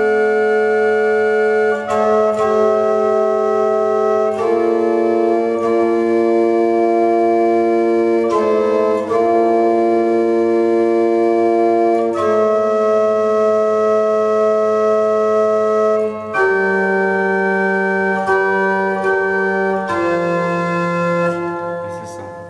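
Organ playing slow, sustained chords that change every couple of seconds, with the notes held steady and unbroken. Over the last few seconds a lower bass note moves under the chord, and the final chord fades away at the end.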